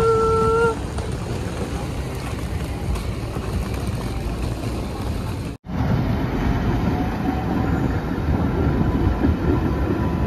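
Steady low rumble of a moving vehicle, opening with a short horn-like tone of under a second. About halfway through, the rumble cuts abruptly to a slightly different, similar-sounding noise.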